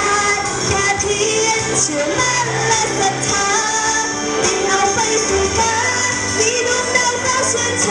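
A solo singer performing a Thai pop ballad into a handheld microphone, amplified over a pop backing track with a steady bass line.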